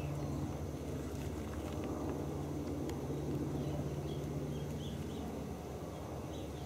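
Steady low background hum, like a distant engine or traffic, with a few faint bird chirps.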